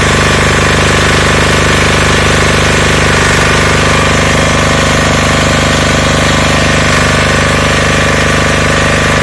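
Single-cylinder air-cooled diesel engine (Matsumoto 10 HP, 186FA type) of an MWG 6500 diesel welding generator running steadily, loud, with a fast even knocking beat.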